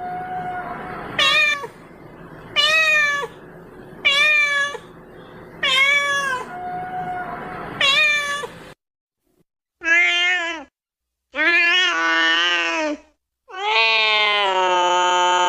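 Domestic cat meowing repeatedly, a short meow about every second and a half. After a brief pause come longer, drawn-out meows, the last held for several seconds: a cat calling for its breakfast.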